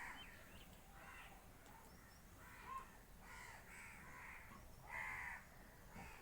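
Birds calling: a series of short, repeated calls, roughly one a second. The loudest come right at the start and about five seconds in.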